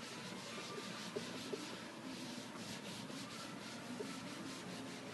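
A dye-loaded sponge being wiped back and forth over an aniline leather couch cushion, a steady scrubbing rub in quick repeated strokes as the dye is worked into the leather.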